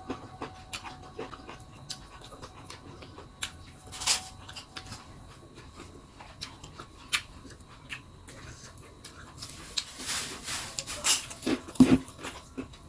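Close-up eating sounds: wet chewing and crunching of plecing kangkung and raw garlic, with many short clicks and crackles and mouth noises. The crunching gets louder and busier about 10 seconds in.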